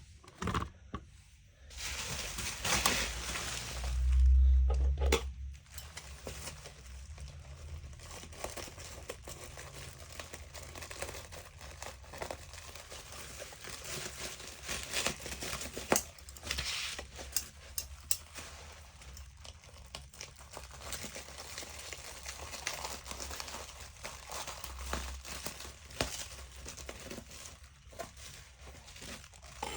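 Crinkling and rustling with some tearing, like packaging being handled, with a heavy low bump about four seconds in.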